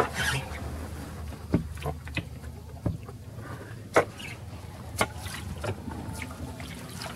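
Inflatable sea canoe being paddled under a rock overhang: short sharp knocks and taps roughly once a second, over a steady low rumble.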